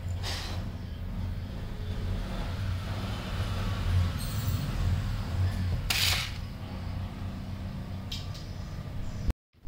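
Steady low mechanical hum, with two short hisses, one about half a second in and one about six seconds in.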